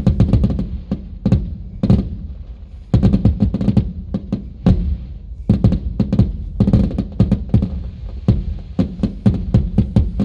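Fireworks finale: many shells bursting in quick, irregular succession, a dense run of booms several a second.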